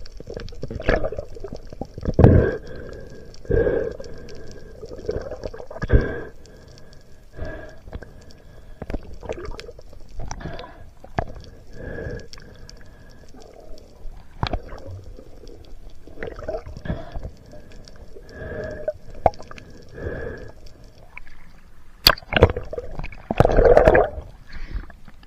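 Muffled underwater sound through an action camera's housing: irregular knocks and water movement while a speared fish is handled on the spear shaft, with a louder cluster of knocks and rushing water near the end.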